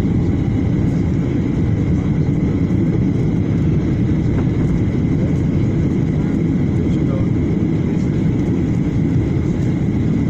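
Steady cabin noise of a Boeing 737 airliner on its descent to land: an even, loud rumble of engines and rushing air heard from inside the cabin beside the wing, with a faint high steady tone over it.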